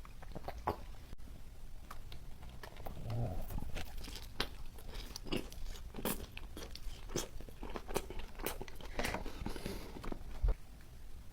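Close-miked eating: a person biting into and chewing crunchy food, with many irregular sharp crunches and wet chewing sounds.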